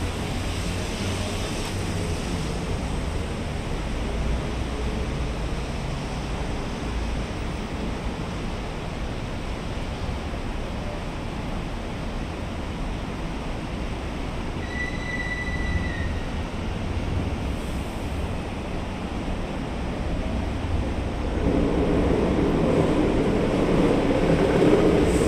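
Steady road traffic at a busy highway junction: a continuous low rumble of engines and tyres. There is a brief high tone about halfway through, and the noise swells louder near the end.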